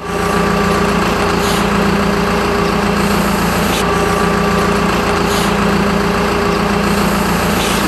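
Diesel engine of a wheel loader running steadily at idle, with a constant hum. It starts suddenly.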